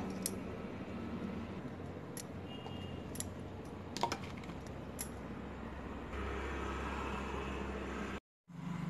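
A few light clicks and clinks of a steel mixer-grinder jar being handled, spread over several seconds, above a faint steady background noise.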